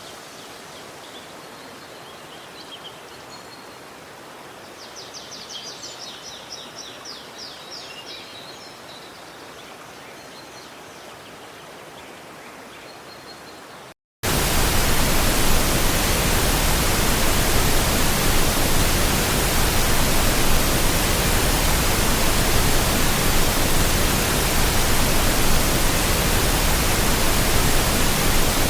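Birds calling over a faint, even outdoor background, with scattered chirps and a rapid trill a few seconds in. About halfway through, the sound cuts out briefly and a loud, steady hiss spread evenly across all pitches takes over and runs on unchanged.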